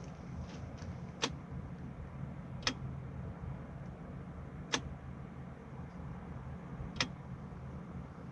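Four sharp, separate clicks from a retrofit HID projector headlight, most likely its high-beam shutter solenoid snapping over each time the beams are switched, over a steady low hum.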